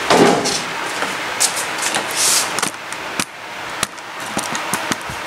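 Packing materials being handled while a machine is unboxed: irregular rustling and scraping, with a short hissing swish about two seconds in and a few light knocks.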